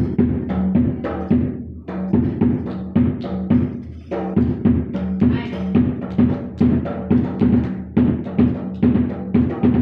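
Tam, the bass frame drum of a hadroh set, beaten with a stick in a quick, steady repeating pattern of about three strokes a second, each stroke leaving a low ring.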